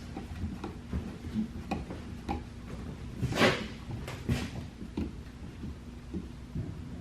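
Scattered small clicks and knocks of hands and a screwdriver working a plastic light-switch cover plate onto the wall, with one louder short scrape about three and a half seconds in.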